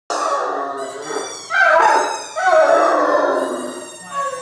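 Ten-month-old Great Dane puppy howling in long, wavering howls, set off by a favourite toy that reliably makes him howl. Fresh, louder howls start about a second and a half and two and a half seconds in.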